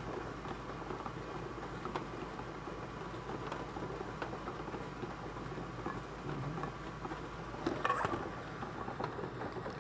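Bingo ball blower running, the plastic balls tumbling and rattling in a steady patter of small clicks over the blower's air noise, with a louder clatter about eight seconds in as the next ball is drawn.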